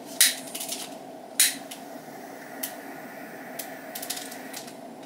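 Long-nosed utility lighter being clicked to light a candle: two sharp clicks about a second apart, each followed by a brief crackle, then a few lighter ticks. A steady low hum sits underneath.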